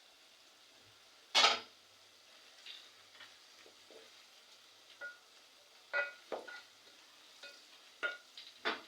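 Onions, carrots and capsicum frying in a pot while being stirred: a spoon scrapes and knocks against the pot about seven times, some strokes ringing briefly. The loudest stroke comes about a second and a half in, over a faint steady sizzle.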